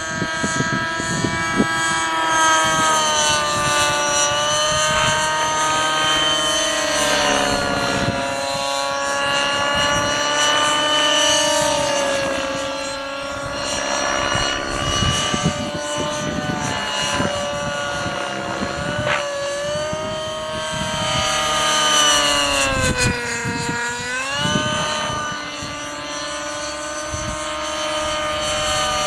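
Align 600 nitro RC helicopter in flight, its two-stroke .55 glow engine and rotors making a high whine that wavers as the load changes, with a deeper dip and recovery near the end. Wind gusts buffet the microphone.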